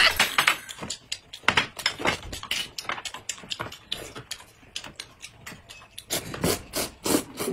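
Close-up eating noises: a man slurping and chewing noodles from a bowl of soup, irregular wet slurps and smacks, with a louder run of slurps about six seconds in. A metal spoon stirs and ticks against a glass mug.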